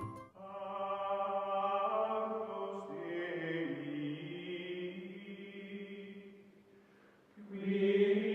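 Outro music of chant-like voices holding long, steady tones. One long held phrase fades out about six and a half seconds in, and a new one starts about a second later.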